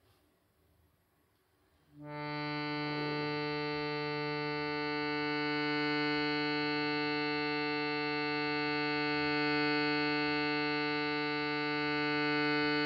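Shruti box sounding a steady reed drone of several held notes, beginning about two seconds in and held without a break.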